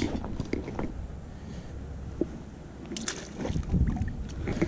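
Wind rumbling on the microphone, with scattered footsteps and light knocks on the lake ice. A couple of sharper clicks come about three seconds in and near the end.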